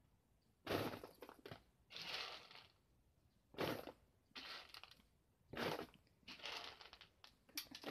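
Dry dog kibble rattling and crunching in a plastic bowl as dog food is shaken from a bag and worked in by hand. It comes in about seven separate bursts, some short and sharp, some lasting about half a second.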